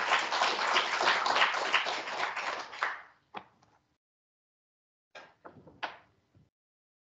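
Audience applauding, dying away about three seconds in, followed by a few scattered claps.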